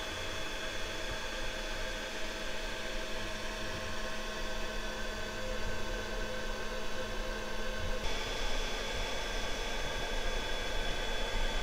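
Steady mechanical hum and hiss with several constant whining tones over a low rumble; the mix of tones changes abruptly about eight seconds in.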